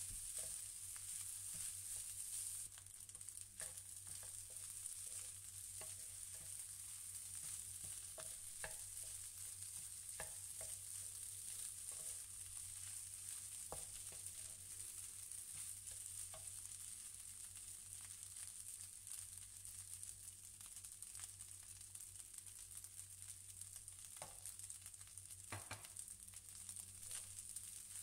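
Fried rice sizzling in a nonstick frying pan as a wooden spatula stirs and turns it, with scattered soft knocks and scrapes of the spatula against the pan.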